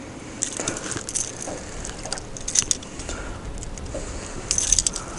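Handling noise from an angler holding a just-landed smallmouth bass and his tackle: rustling with scattered light clicks and clinks, a quick cluster of them near the end, over a low rumble.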